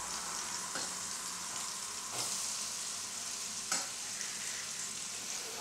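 Shallots sizzling steadily as they fry in a pan, a hiss broken by a few light knocks.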